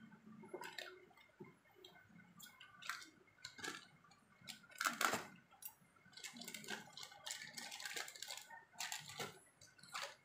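Clear plastic packing bags crinkling and rustling as figure parts are handled and pulled out of them, in short irregular crackles, the loudest about five seconds in.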